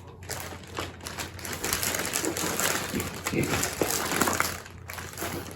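Quick, irregular light clicks and rattling from handling a small set of coloring pencils and art supplies on a desk.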